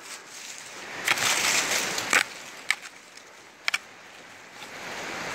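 Rustling and scraping in dry leaves and loose soil while a hole is dug by hand, with a few sharp clicks and snaps.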